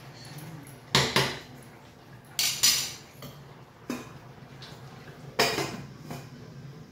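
Spatula clanking and scraping in a kadai of chicken, then a stainless steel lid clattering as it is picked up and set on the pan; about five sharp clanks in all.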